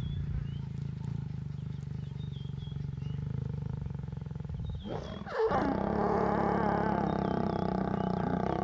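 Lions growling while mating: a low, steady rumbling growl, then about five seconds in a louder, snarling growl as the lioness bares her teeth, which holds to the end.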